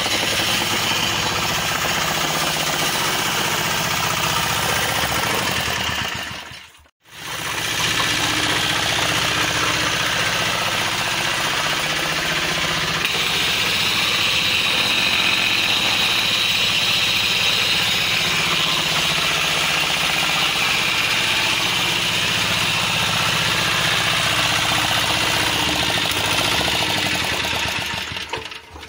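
Greaves 5 HP single-cylinder diesel engine of a concrete needle vibrator running steadily with a loud, even clatter. The sound cuts out for a moment about seven seconds in, then resumes.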